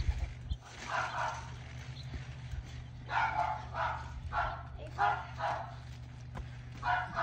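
A dog barking repeatedly: short barks about a second in, a quick run of them through the middle, and one more near the end.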